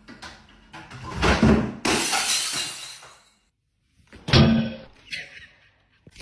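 A loud crash of something falling and breaking, with a bright clatter that dies away over about a second. A second sharp knock follows a couple of seconds later.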